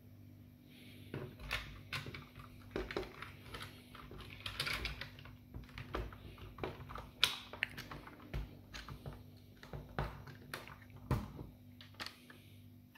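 Hard plastic internal parts of a Nerf Rival Roundhouse blaster being handled and fitted into its shell: irregular light clicks and taps from about a second in until near the end.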